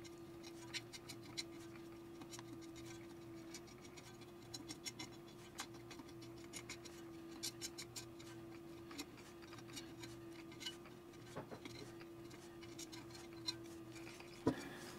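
Faint, irregular scratching and clicking of a utility knife blade scraping the crumbling old foam surround and glue off the rim of an 8-inch speaker woofer, over a faint steady hum.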